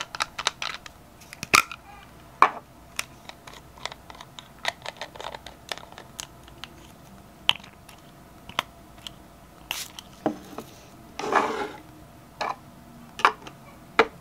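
Small plastic and glass skincare bottles clicking and knocking as they are handled in and out of a hard travel case, with a short rustle about eleven seconds in.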